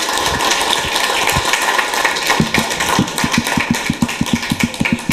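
Applause from a small group of people clapping, thinning after a couple of seconds into distinct, separate claps.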